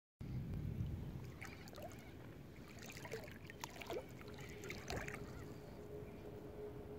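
Wind rumbling on a phone microphone over shallow water lapping at the shore, with a few faint clicks.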